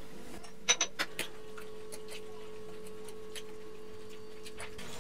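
Metal utensil clinking and tapping against a ceramic bowl while stirring raw eggs into fried potato, onion and green pepper for a Spanish omelette: a few sharp clinks about a second in, then fainter taps. A steady faint hum runs underneath.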